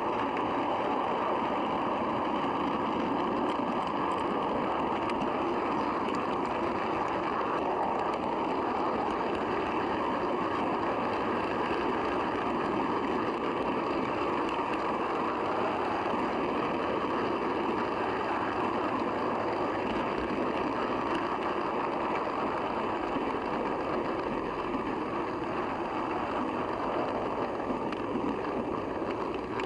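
Model train running on its track, heard from a camera riding on one of the coaches: a steady rolling rumble of wheels on rail, easing slightly near the end.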